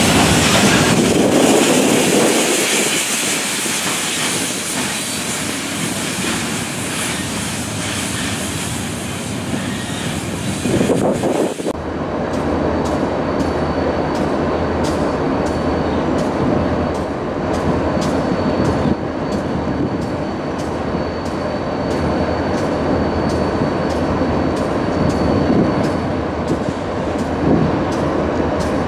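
Freight train: loaded gondola cars rolling past close by, wheels clacking and rumbling over the rail joints. About twelve seconds in this changes abruptly to an approaching Ferromex diesel locomotive, its engine running with a steady low hum.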